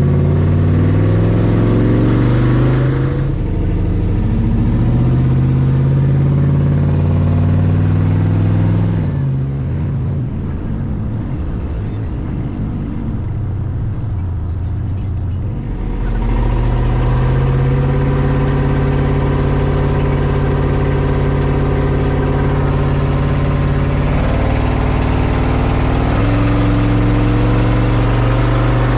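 LS-swapped V8 in a 1954 Chevy driving down the road: the engine note climbs and steps as it pulls through the gears, goes quieter for a stretch midway, then holds a steady cruise. It is on a test drive after a spark-plug change, and the engine is known to miss on cylinders 7 and 8 under load.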